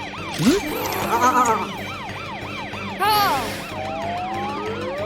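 Cartoon emergency-vehicle siren wailing up and down fast, about two to three sweeps a second, over background music and short sound effects. About three seconds in the fast wail gives way to slower rising sweeps.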